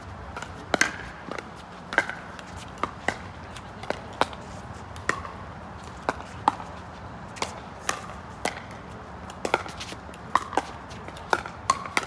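A pickleball rally: sharp pops of paddles hitting the hollow plastic ball and the ball bouncing on the court. The hits come at an irregular pace, roughly one a second.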